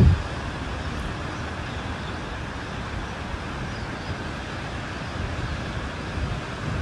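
Steady rushing noise of distant road traffic and wind heard from high above a busy city road.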